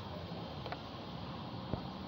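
Pliers working a metal clip on an engine-bay hose: two small metallic clicks, a faint one and a sharper one about three-quarters of the way through, over a steady background hiss.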